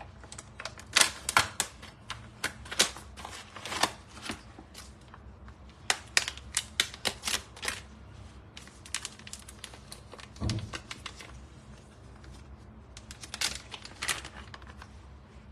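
Plastic packaging crinkling and crackling as a resealable pouch is handled and opened, in irregular clusters of sharp crackles, with one duller thump about ten seconds in.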